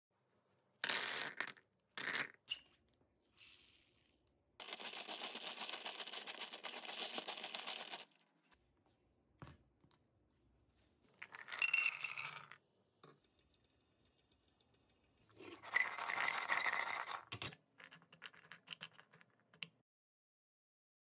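A run of handling noises: short scrapes, rustles and small clinks, with one steady scraping, crackling stretch lasting about three and a half seconds.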